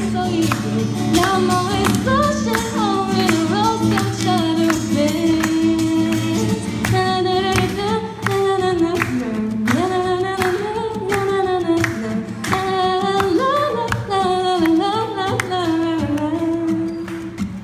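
A woman singing a slow melody while strumming a steel-string acoustic guitar, amplified through a PA.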